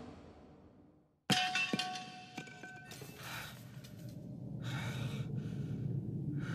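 Anime soundtrack: a moment of dead silence, then a sudden crash with several ringing tones that fade over about a second and a half, followed by pulsing breathing or gasps that grow louder near the end.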